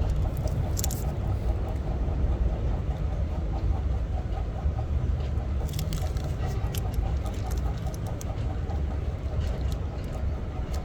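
Car engine running steadily with a low rumble, with scattered light clicks.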